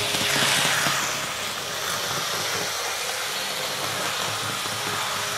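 Märklin H0 model trains running on a layout: a steady mechanical hum and hiss of the models' motors and wheels on track, with a rush that falls in pitch over the first second or so as a train passes close by.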